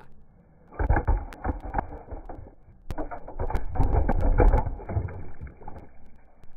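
Toy cars rolling and clattering over rocks: a rough rumble with many sharp clicks, in two stretches, the second longer.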